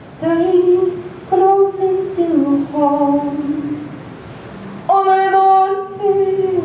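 A woman singing slow, long-held notes into a microphone, in three phrases that step down in pitch, with short breaks between them. The last phrase, about five seconds in, is higher and louder.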